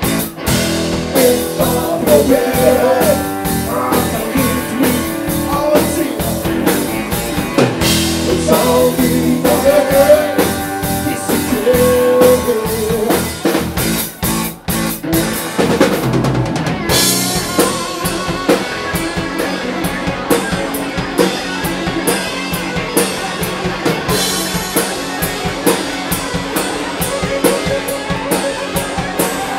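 Live rock band playing: a man singing over electric guitars and a drum kit. Just past halfway the singing stops and the band plays on instrumentally, with busier drumming and more cymbal.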